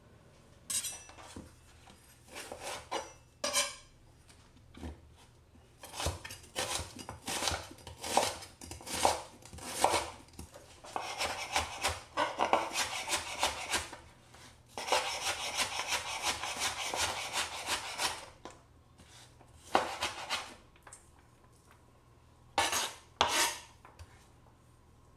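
Chef's knife on a cutting board: a few scrapes and knocks at first, then chopping onion in runs of quick strokes, fastest and most continuous around the middle, with a few last knocks near the end.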